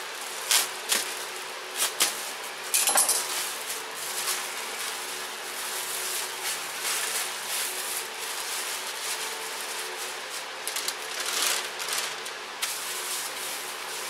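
Plastic bag crinkling and rustling as it is handled and pulled open around a raw pork leg, in irregular sharp crackles, over a faint steady hum.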